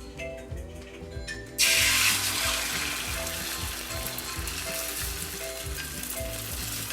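Beaten eggs hitting a pan of hot oil, starting to sizzle suddenly about a second and a half in, loudest at first and then settling into a steady sizzle.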